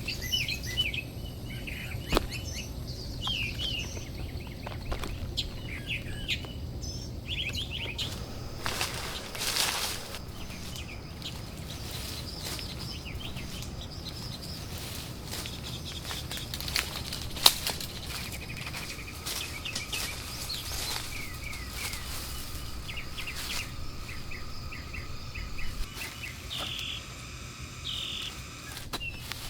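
Small birds chirping in short calls, with a few sharp knocks and a brief rustle about nine seconds in.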